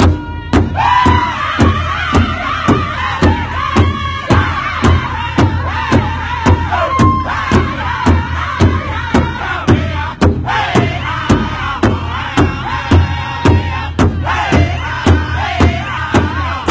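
Powwow drum group singing a high-pitched song together over a steady beat of several drummers striking one large powwow drum in unison, about three beats a second. The singing breaks off briefly twice while the drumbeat carries on.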